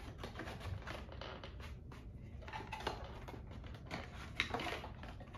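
Small cardboard box being opened by hand: the lid and packaging scrape and rustle, with irregular soft clicks and a sharper knock about four and a half seconds in.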